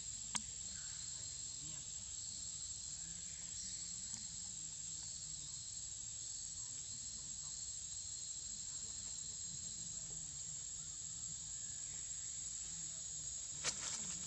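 Insects in the forest making a steady, high-pitched drone, with two sharp clicks: one about half a second in and another near the end.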